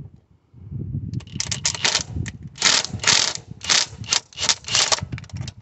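Kobalt 24-volt cordless impact driver rattling in a series of short trigger bursts, about ten of them, as it backs out the 10 mm bolts holding the EGR valve on a Honda D16 engine.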